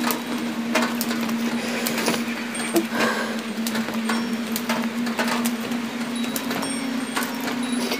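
Composed soundscape: a steady hum held on one low pitch, overlaid with scattered sharp clicks and crackles at irregular intervals.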